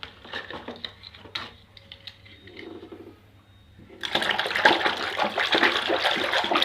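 A few light clicks and knocks, then about four seconds in water suddenly starts running and splashing loudly as a muddy toy is washed.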